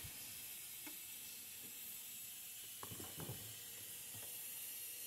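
Faint rustles and light taps of frozen sacolé popsicles in plastic bags being handled and picked up, a few of them about three seconds in, over a steady hiss.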